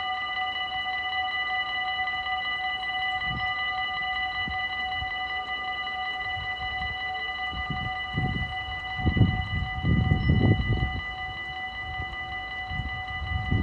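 Dutch railway level-crossing warning bell ringing steadily as the barriers lower, warning of an approaching train. Irregular low rumbling bursts come and go beneath it, loudest about two-thirds of the way through.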